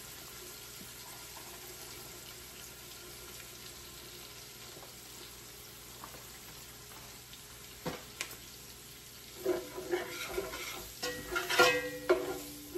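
Steady sizzle of frying in oil in a skillet. From about two-thirds of the way through, a couple of sharp knocks and then a run of scraping and clattering, as a utensil stirs in the pan.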